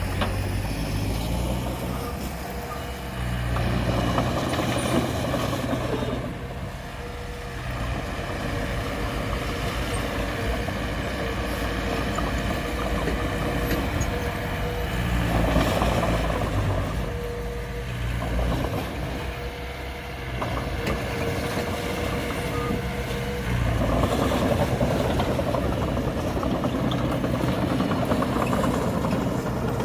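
Heavy diesel earthmoving machinery running, its engine rising to a louder working pitch three times with quieter stretches between. A thin steady whine is heard during the quieter stretches.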